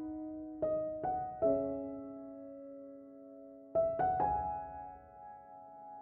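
Slow, soft solo piano background music: small groups of notes struck and left to ring out and fade, with a pause in the middle.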